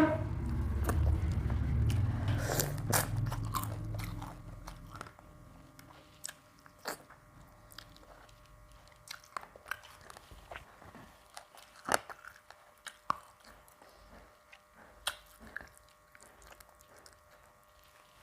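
Close-miked eating sounds: a person chewing and biting food, with crunching and sharp mouth clicks and smacks. Louder for the first few seconds, then softer, with scattered clicks.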